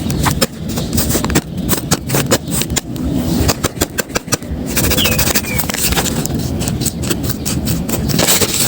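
Paper crinkling and rustling close to the microphone as a handmade paper blind bag is unwrapped by hand, with many quick sharp crackles.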